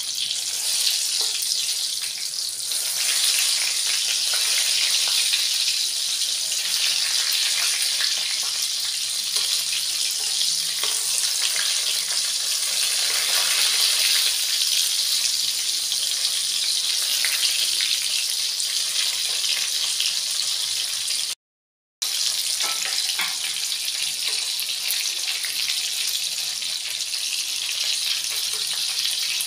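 Chicken lumpia frying in hot oil in a wok, a steady sizzling that grows a little louder about three seconds in. The sound cuts out completely for about half a second roughly two-thirds of the way through.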